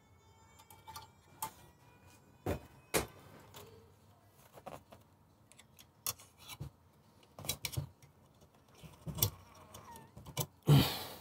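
Scattered metallic clicks, clinks and knocks, irregular and a second or so apart, as motorcycle exhaust parts are handled and pushed together while a slip-on silencer and link pipe are fitted.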